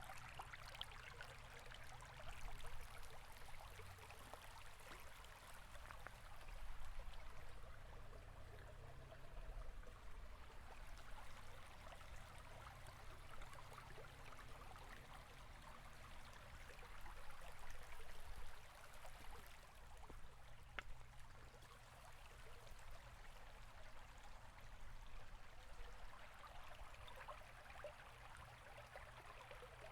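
River flowing steadily: a faint, even rush of running water with a low rumble underneath, swelling a little now and then.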